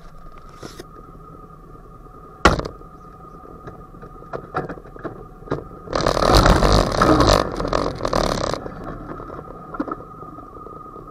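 Knocks and clicks picked up by a camera mounted on an ATV's hood: one sharp knock about two and a half seconds in, then a loud burst of rushing noise lasting about two and a half seconds in the second half, over a faint steady whine.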